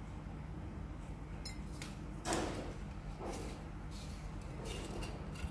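Knocks and clicks of a glass syrup bottle being handled and set down on a countertop beside a stainless steel shaker, with the loudest thump about two seconds in and a run of lighter clicks near the end.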